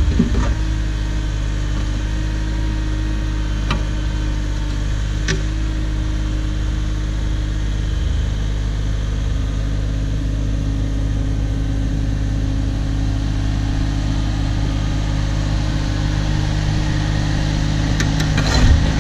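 The diesel engine of a Cat 304 mini excavator running steadily. A couple of faint clicks early on and a brief louder clatter near the end.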